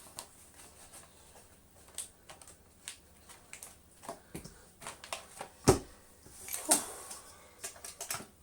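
Handling noises from a Hoover Constellation vacuum cleaner as a dust bag is fitted: scattered light clicks and knocks, some rustling, and one heavier thump a little before six seconds in.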